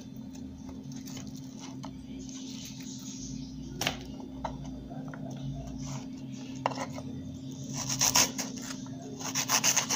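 Onion slices and a knife being handled on a wooden cutting board and swept into a plastic bowl: a sharp click about four seconds in, a few light ticks, and a quick run of clicks near the end, over a steady low hum.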